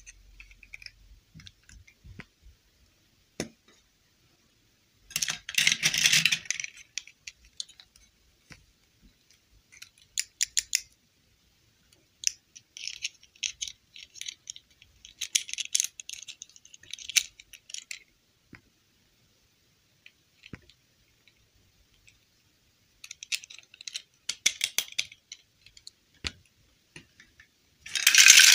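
Small plastic mini dolls and their clip-on plastic dresses clicking and rattling as they are handled, pulled apart and put into a bowl, in scattered short bursts with quiet gaps. The busiest clatter comes about six seconds in and near the end.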